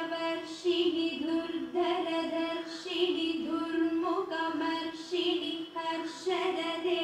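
Background music: a woman singing a slow melody, long held notes in phrases of about a second each.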